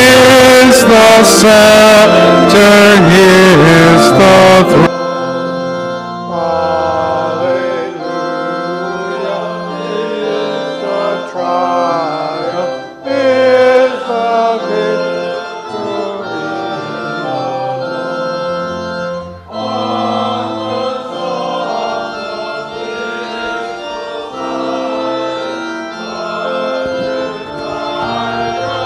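A hymn sung by choir and congregation over church organ, ending about five seconds in. The organ then plays on alone, quieter, in slow held chords.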